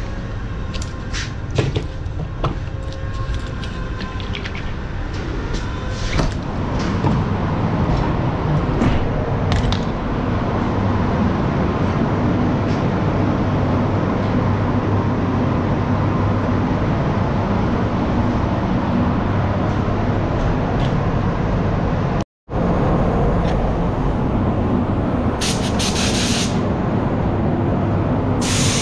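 Steady hum of spray-booth or workshop air machinery, with scattered clicks in the first several seconds. A spray gun hisses with compressed air in short bursts near the end.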